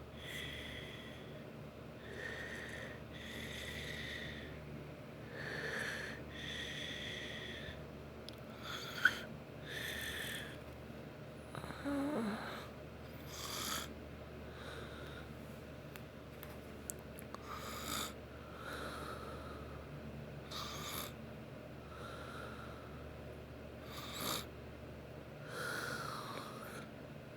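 Snoring: a long run of uneven breaths every second or two, many with a thin high tone over the breath noise. There is one short, sharp click about nine seconds in.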